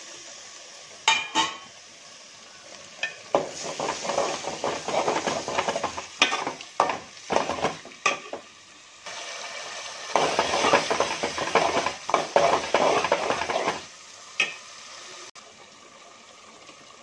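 A steel spoon stirring raw chicken pieces into hot oil, fried onions and masala in a metal pot, scraping and clinking against the pot while the oil sizzles. There are a couple of clinks about a second in, then two long bouts of stirring, the second starting about ten seconds in.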